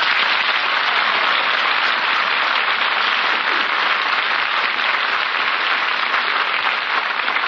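Live studio audience applauding steadily for a guest star's entrance, heard on an old radio broadcast recording.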